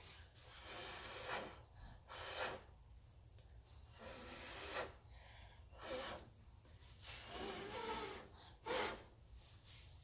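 A person blowing hard through pursed lips onto thinned wet acrylic paint, pushing it across the canvas into wave shapes. The blowing comes as a string of short hissing puffs, about one a second, with a breath drawn in between.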